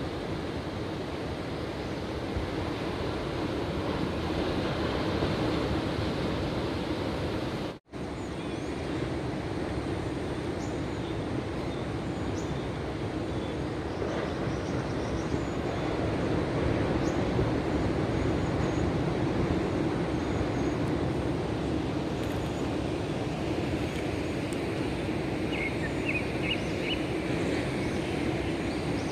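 Steady rushing roar of sea surf breaking on the shore. It cuts out for an instant about eight seconds in, and a few faint high chirps come near the end.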